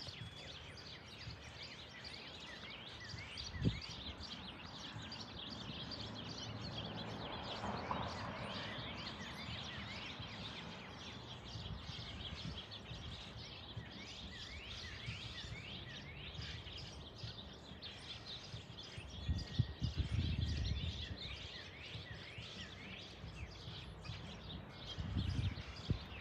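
Airbus A330-300 airliner with Rolls-Royce Trent 700 engines passing overhead at a distance: a faint jet noise that swells to its peak about eight seconds in, then slowly fades. Birds chirp throughout. There is one sharp click early on, and low buffeting bursts come about two-thirds of the way through and again near the end.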